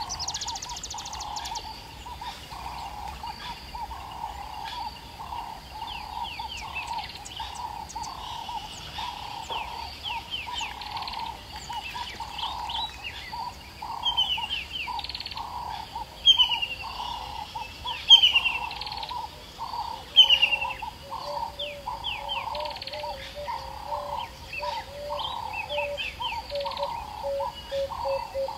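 Wild birds calling in a busy chorus: a lower note repeated about once a second, many quick high chirps, and four loud descending calls about two seconds apart midway through.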